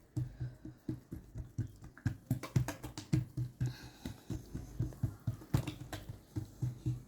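Hands patting and spreading oiled msemen dough thin on a work surface: a run of soft, irregular slaps and taps, several a second.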